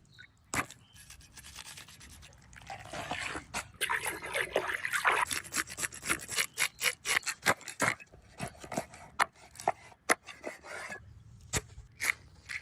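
Rapid repeated scraping and rubbing strokes, several a second, thickest through the middle and thinning out toward the end.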